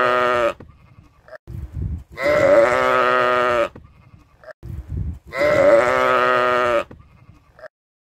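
Sheep bleating: a long bleat ends about half a second in, then two more long, steady-pitched bleats of about a second and a half each follow, roughly three seconds apart, each with a short lower sound just before it.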